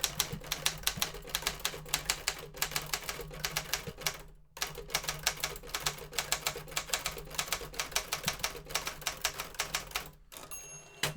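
1960 Consul Silent portable manual typewriter being typed on at a quick steady pace, rapid snappy keystroke clicks at about five or six a second, with two short pauses. A brief ringing tone sounds near the end.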